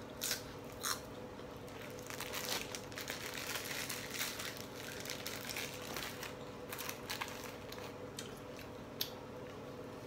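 Close-up eating sounds: a person chewing and biting food, with crunching and the crinkle of a plastic bag of sticky rice being handled, busiest a couple of seconds in.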